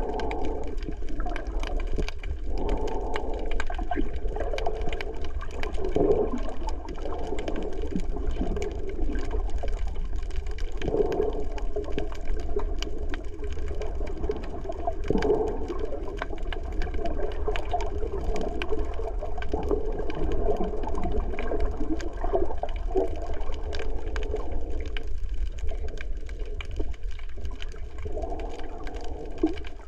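Underwater ambience heard through an underwater camera: a constant low rumble and muffled, shifting water swells, with many faint clicks scattered throughout.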